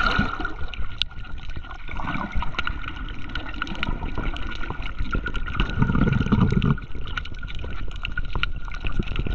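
Water sloshing and gurgling around a camera held underwater while snorkelling, with scattered faint clicks and crackles and a louder low gurgle about six seconds in.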